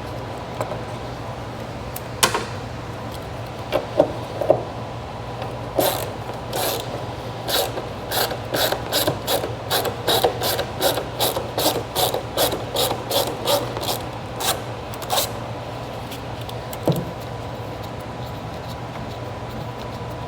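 Hand ratchet clicking in a steady run of strokes, about two a second, as fasteners are worked loose, after a few scattered clanks. A steady low hum sits under it.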